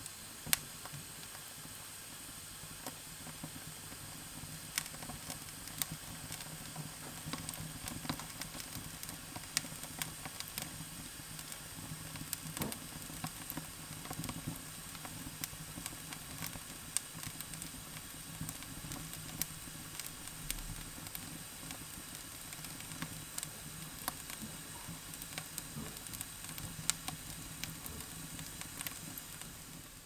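Wood fire of split birch logs burning in a fireplace, crackling with frequent sharp, irregular pops over a steady hiss.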